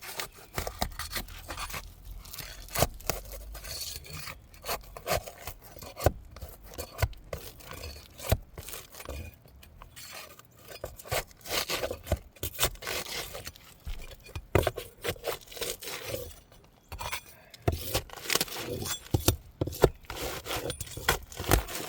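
Asphalt roof shingle being pried loose: irregular scraping and rubbing with many sharp clicks and snaps as the brittle shingle is worked off its nails.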